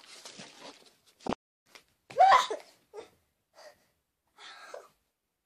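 A single thump, then a girl's short, loud vocal outburst followed by a few faint breathy sounds, as she lands on the floor.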